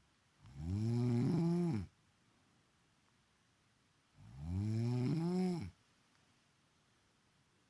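A woman snoring: two long snores about four seconds apart, each lasting about a second and a half, with a pitch that rises and then falls.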